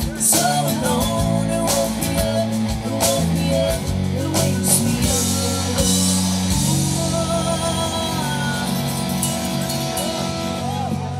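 Live rock band playing, with guitars, drums and a woman singing. The drum hits stop about six and a half seconds in, and the band holds a final chord that rings on as the song closes.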